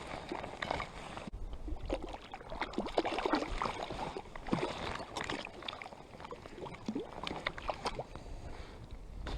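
Irregular splashing and sloshing of water close to a float tube as a hooked cutthroat trout is played in and landed, with small scattered splashes and knocks throughout.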